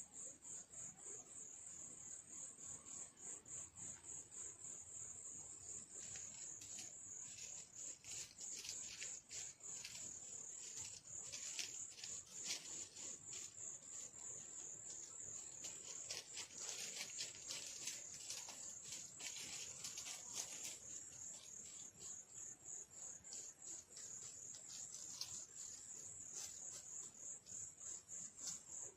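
Insects chirping in a steady, rapid, high-pitched pulse throughout. Through the middle stretch it is joined by a busy run of sharp crackling clicks.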